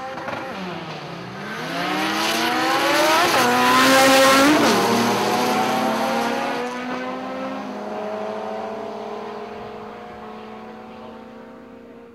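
Two tuner drag cars launching from the line and accelerating hard down the strip. Engine revs climb and drop back at each gear change, several shifts in the first five seconds, loudest around four seconds in, then the sound fades as the cars pull away down the track.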